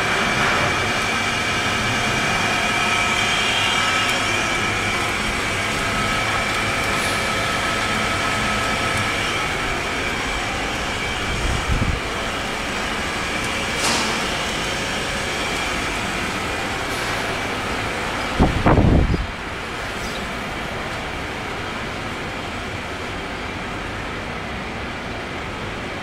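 Steady machinery noise from a running paper-processing line in a melamine board factory, with several steady whining tones over it. A couple of low thumps come through, the loudest about two-thirds of the way in, after which the noise drops a little.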